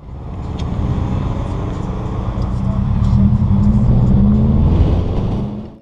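A car's engine and exhaust running as the car drives off, picked up close by a camera mounted on its body: a loud, low drone that builds over the first second and cuts off suddenly near the end.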